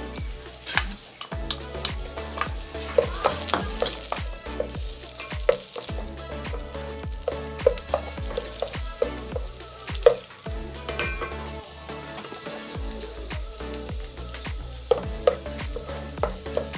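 Onion and ginger sautéing in hot oil in an aluminium pot, sizzling steadily, while a wooden spatula stirs them and knocks against the pot many times.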